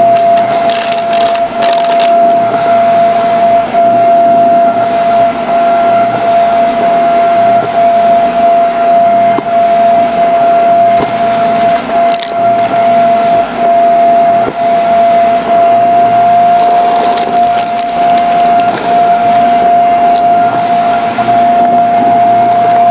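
Vacuum cleaner running with a steady high whine, with scattered crackles and clicks of crunchy debris being sucked up.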